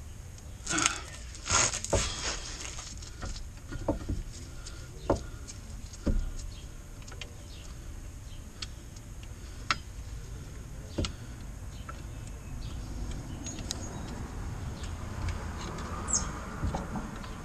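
Scattered metallic clicks and knocks from a brake caliper being handled and worked on the front hub, with a cluster of sharper knocks about one to two seconds in.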